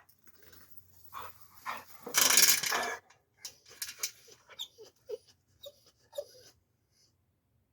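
Young male dog whining and whimpering in short, separate squeaks, with a louder, noisy sound lasting about a second about two seconds in. He is sexually frustrated at being shut out, away from a female.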